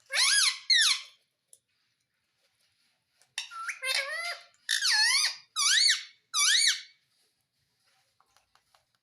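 Parrot calling in shrill, squeaky notes that sweep up and down in pitch. There are two quick calls at the start, then after a pause a run of about five more.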